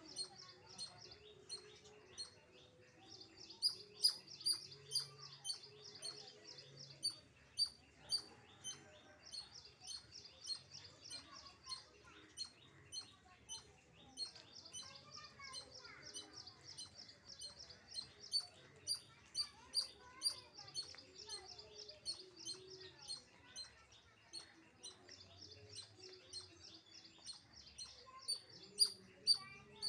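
Squirrel giving a repeated high-pitched chirping call, about three sharp chirps a second, in long bouts broken by brief pauses.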